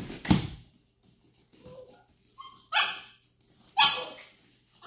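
A small dog barking twice, two short sharp barks about a second apart in the second half, with a few faint whines before them. A loud thump just after the start is the loudest sound.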